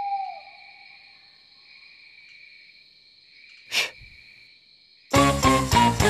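Night ambience: an owl hoots once at the start over steady cricket chirring. A short, sharp burst of noise comes a little before four seconds in. Music with bells comes in suddenly about five seconds in.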